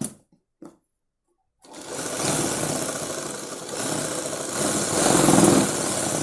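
Sewing machine stitching through cloth and buckram, starting about a second and a half in after a few light clicks, and running on with a louder, faster stretch near the end.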